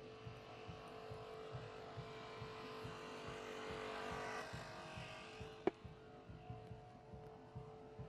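Hydraulic rescue equipment working on a car body: the pump unit runs with a steady hum and regular low pulses, and a hiss swells and fades as the tool works. A single sharp crack comes a little before six seconds in.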